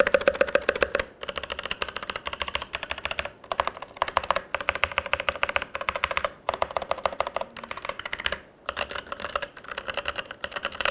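Close-up typing on a Logitech G413 TKL SE mechanical keyboard with tactile brown switches: fast runs of key clicks broken by short pauses. The keys show no rattle.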